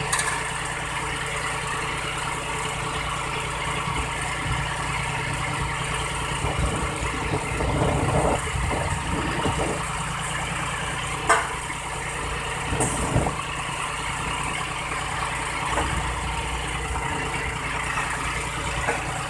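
Engine of a crash barrier installation machine running steadily, with a few short knocks, the sharpest about eleven seconds in.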